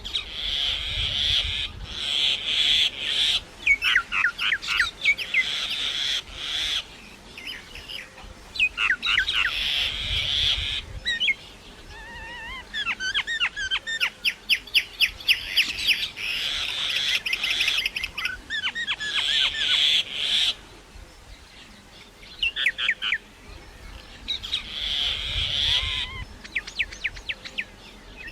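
Common myna singing: a varied song of harsh, grating notes broken by quick whistled slurs, with a fast run of short repeated notes in the middle.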